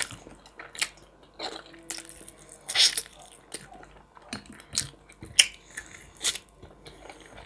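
Close-up eating sounds of someone chewing pan-fried chicken thigh meat: wet mouth smacks and clicks at irregular intervals.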